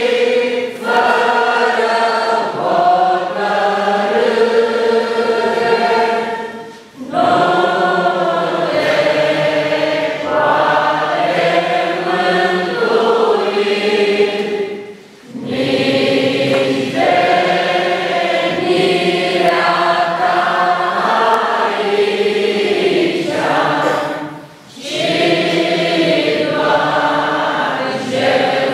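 Congregation singing a hymn together in long sustained phrases, with three brief pauses for breath between lines.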